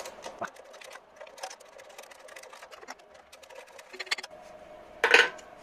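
Scattered metallic clicks of a wrench working a hidden turbocharger mounting nut, then a single louder metal clank about five seconds in.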